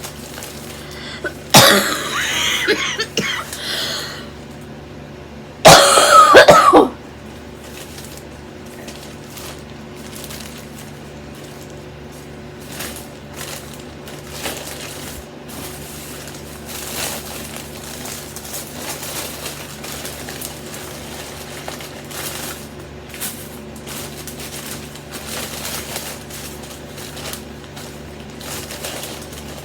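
A person coughing loudly twice in the first seven seconds, then quiet rustling and small handling clicks.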